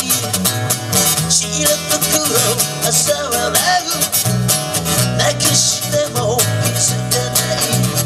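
Live music: an acoustic guitar strummed in a steady rhythm over an electric bass line, with a man singing into a microphone.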